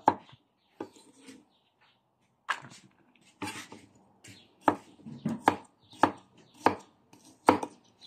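Kitchen knife slicing fresh turmeric root on a wooden chopping board: about eight sharp knocks of the blade on the wood at an uneven pace, with a short pause after the first one.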